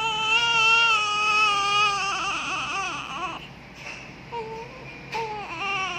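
Newborn baby crying: one long wail for about the first three seconds, then after a short pause, shorter wavering cries.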